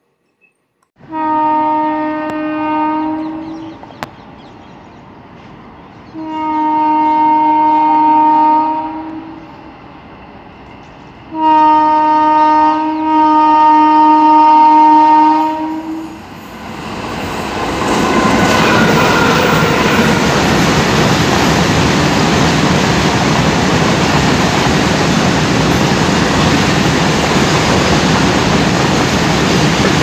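WDG-4 diesel locomotive's horn sounding three blasts, the last the longest, as the goods train approaches. The train then runs past at speed, its wagons making a loud, steady rushing noise.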